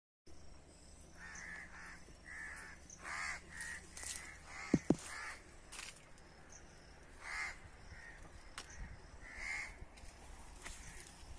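Crows cawing in a string of short calls, one every second or so, fairly faint. About five seconds in come two brief, loud, low pops in quick succession.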